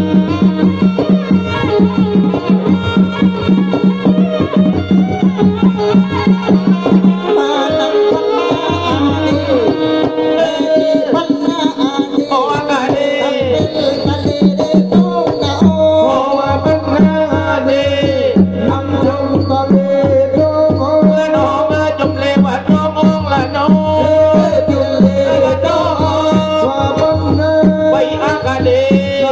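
Southern Thai Nora (Manora) ensemble music: fast, driving drumming over a steady low pulse, joined about seven seconds in by a wavering, sliding melody.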